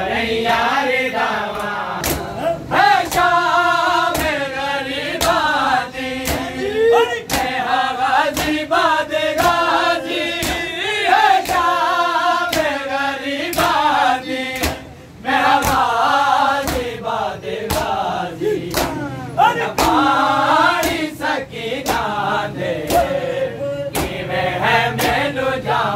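A group of men chanting a mourning noha in unison, loud and steady, over sharp slaps about twice a second: hands beating on chests (matam) in time with the chant.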